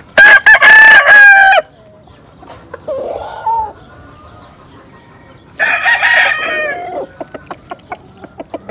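Gamecock roosters crowing: one loud crow near the start, another about five and a half seconds in, then a run of short, quick clucks.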